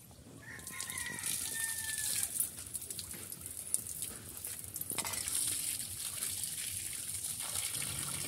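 Water pouring from a pipe and splashing onto a concrete floor and a steel plate as fish pieces are rinsed by hand. The splashing grows louder about five seconds in.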